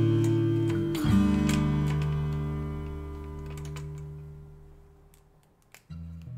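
Background acoustic guitar music: a chord is strummed about a second in and rings out, fading almost to silence before a new chord starts near the end. A few faint clicks sound while it fades.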